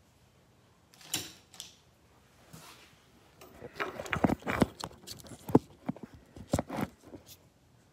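Irregular light clicks and knocks close to the microphone, from hands handling the exhaust manifold gasket and metal parts at the cylinder head. The run starts about three and a half seconds in, after a near-quiet stretch.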